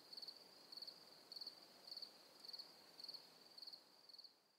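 Faint chirping of insects: a steady high trill with louder chirps repeating regularly, a little under twice a second.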